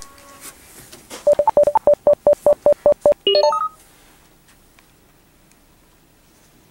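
Electronic keypad beeps: a fast run of about a dozen short beeps at one pitch, roughly six a second, followed by a quick run of beeps at changing pitches, like keypad dialing tones.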